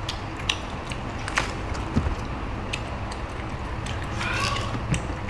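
Scattered light clicks and taps of people eating chicken, over a steady low hum. A short high-pitched call comes about four seconds in.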